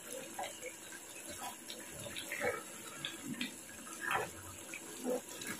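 A wooden spatula stirring chicken and red lentil curry in a non-stick kadai, giving soft wet squelches and scrapes at irregular intervals.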